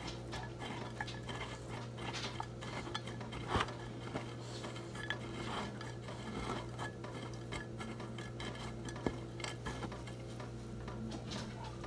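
Crushed hot Cheetos crumbs crackling and rustling as hands press chicken pieces into them in a glass baking dish, with a few sharper knocks against the dish.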